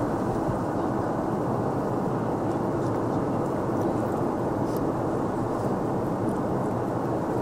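Steady cabin noise of an Airbus A320 in flight: an even rush of airflow and engine drone heard from inside the cabin.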